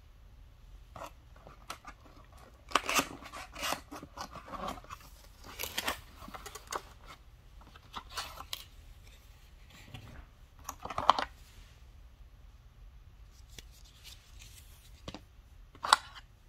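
Cardboard packaging being handled and opened: box flaps and a paperboard insert scrape and rustle in short, irregular bouts, with a sharper knock near the end.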